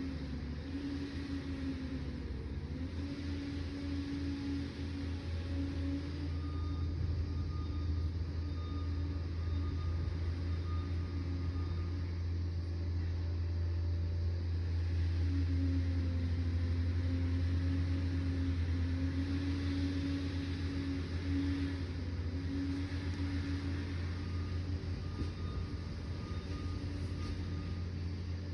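Liebherr PR 746 crawler dozer's diesel engine running as the machine works, a steady low drone that swells in the middle and then eases.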